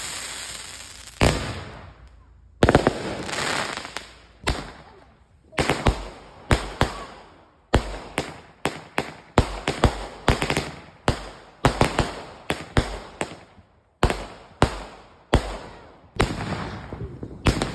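Aerial fireworks launching and bursting in quick succession: a string of sharp bangs, about one to two a second, several trailing off into a crackling hiss.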